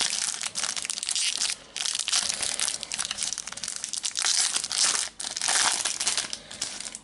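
Foil trading-card packet being torn open and crinkled by hand: a dense crackling rustle, broken by brief pauses about a second and a half in and again around five seconds.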